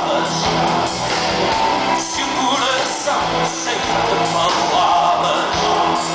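Live rock band playing loud: electric guitars, bass guitar and drums, with a male singer's voice over them. Heard from the audience in a concert hall.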